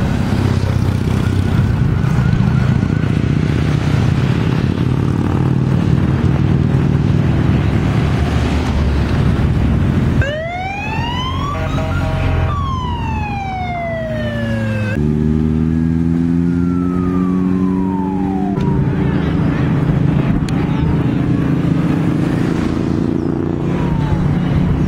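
Escort motorcycles and cars passing close by with engines running, and a siren wailing up and down for several seconds about halfway through, with fainter siren sweeps after it.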